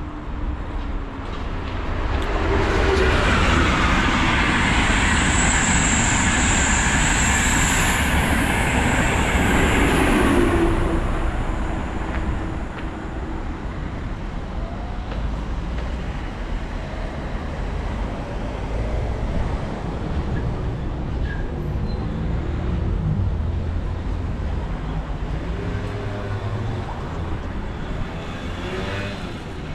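A train passing close by, loud for about nine seconds with a thin high squeal in the middle, then fading to a lower rumble. Near the end something passes with a sound that shifts in pitch.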